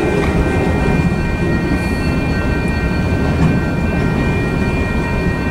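Freight train cars rolling past over a grade crossing: a steady rumble of steel wheels on rail, with a steady high ringing held over it.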